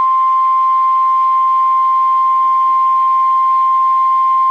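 NOAA Weather Radio warning alarm tone: one loud, steady, unbroken 1050 Hz tone, the signal that a warning broadcast follows, here a special marine warning.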